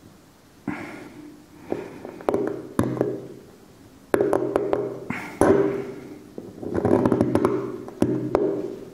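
Steel seal-carving knife cutting into a hard stone seal: a series of about seven short scraping strokes, each opening with sharp chipping clicks and a gritty grind that fades out.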